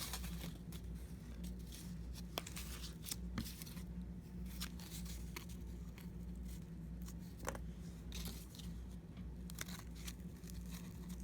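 Plastic and cardboard packaging of a socket set being torn and handled: irregular crackling, tearing and small clicks throughout, over a steady low hum.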